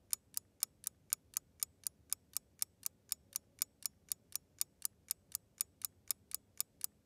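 Countdown-timer ticking sound effect: quick, even, crisp ticks, about four a second.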